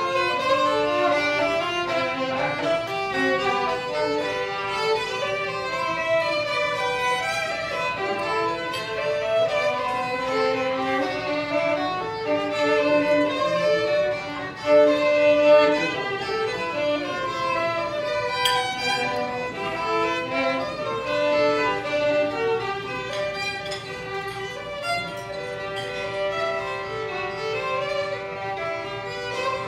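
Two violins playing a melody together, live, note after note with the bow, swelling briefly louder about halfway through.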